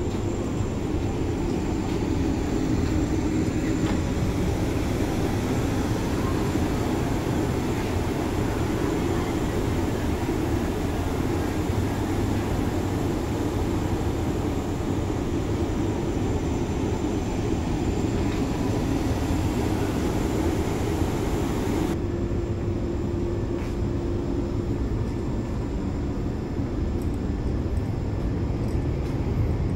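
Steady rumble and hiss inside a Vande Bharat Express chair-car coach. About two-thirds of the way through, the higher hiss suddenly drops away, leaving mostly the low rumble with a faint steady hum.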